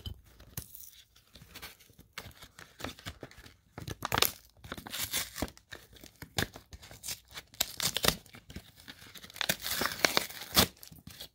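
Foil wrapper of a Yu-Gi-Oh! trading card booster pack being crinkled and torn open by hand, in a run of irregular crackling rips that get busier about halfway through.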